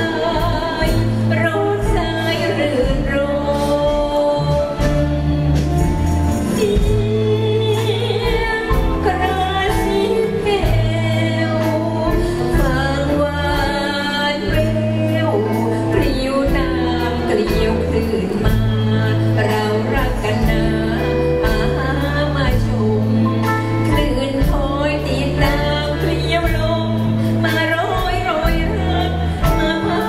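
A woman singing a Thai song into a microphone, backed by a live band with drum kit and keyboard over steady bass notes.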